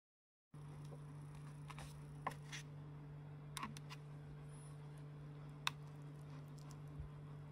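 Faint steady low hum with a few light clicks, two of them sharper, as wooden chopsticks stir and lift thin noodles in an instant ramen cup.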